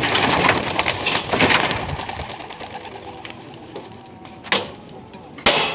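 Racing pigeons taking off from a loft cage: a rapid clatter of flapping wings for the first two seconds, fading as the birds fly off, with a sharp knock near the end.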